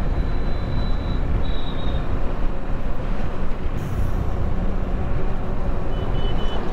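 Wind rush and road and engine noise on a moving motorcycle, heard as a steady low rumble through a helmet-mounted camera's microphone. A faint thin high tone sounds briefly in the first two seconds and again near the end.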